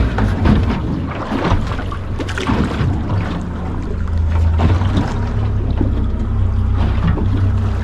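Boat engine running steadily, a low hum under wind and water noise with scattered knocks and splashes.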